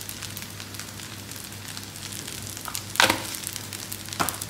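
Fried rice sizzling in a metal wok, with a steady hiss and small scattered crackles. A sharp knock comes about three seconds in and a lighter one just before the end.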